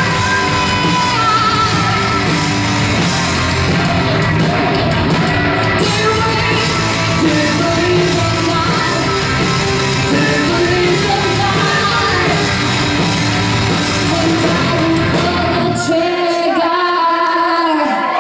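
Heavy rock music with a woman's voice singing and yelling over the band. About sixteen seconds in the band drops away and the voice goes on alone on a held note.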